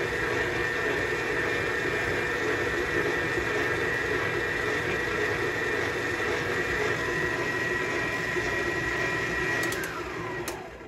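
Electric stand mixer running steadily with a dough hook working pie dough, a motor whine over it. It is switched off about ten seconds in, and the whine falls in pitch as it spins down.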